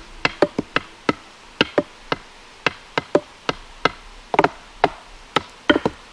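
Sharp knocks and clicks, about three a second at uneven spacing, with a few coming in quick pairs a little after four seconds and near the end.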